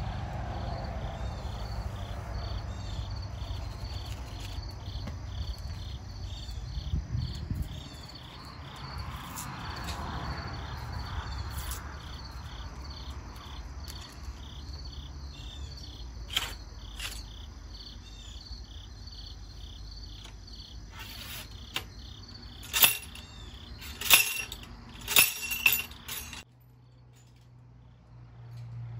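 Insects trilling steadily in a fast, even pulse over a low rumble. Near the end come several sharp metallic clicks and knocks, the loudest sounds here, as the muzzle-loading rifle is being loaded.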